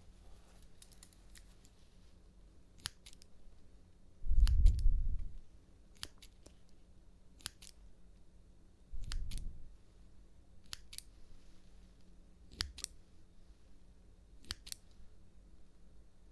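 Scissors snipping close to the microphone for ASMR: crisp snips, often in quick pairs, every second or two. Twice, about four and nine seconds in, comes a louder low, muffled rumble lasting about a second.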